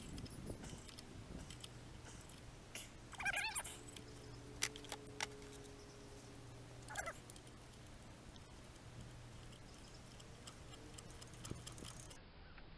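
Faint scattered clicks and light metallic knocks over a steady low hum, with two short wavering squeal-like calls, about three and seven seconds in.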